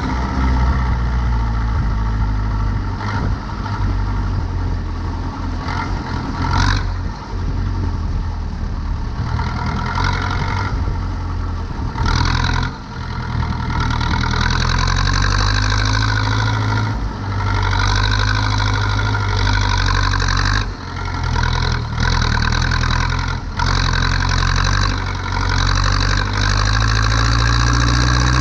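Zetor 7245 tractor's four-cylinder diesel engine running under load while turning hay, its pitch rising and falling a little, with short rattles now and then.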